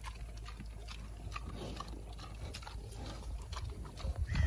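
Hereford sow and her suckling piglets grunting and squeaking, with scattered short clicks and rustles in the mud. There is a louder low thump near the end.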